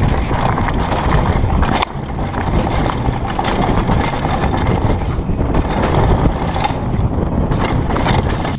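Downhill mountain bike ridden fast down a dirt trail: wind buffeting the on-board camera's microphone over tyres rolling on dirt, with frequent rattles and knocks from the bike over bumps.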